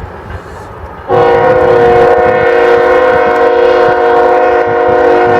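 Locomotive air horn sounding a loud multi-tone chord, starting about a second in and held steady.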